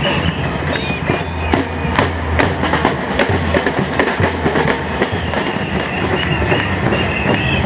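Drums beaten in an uneven rhythm of sharp strikes over a steady low rumble, with short high chirps near the start and again near the end.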